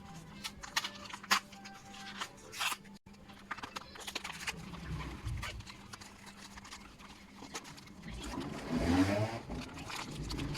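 Handling noise from restringing an acoustic guitar: scattered clicks and taps, then about nine seconds in a string sounding and rising in pitch as it is wound tighter.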